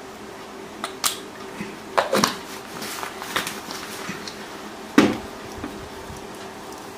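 A few short, sharp clicks and knocks, the loudest about five seconds in, over a faint steady hum.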